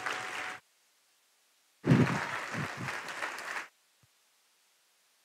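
Clip-on lapel microphone rustling and bumping against clothing as it is handled, in a short burst at the start and a longer one of about two seconds, with the sound cutting out completely in between and after.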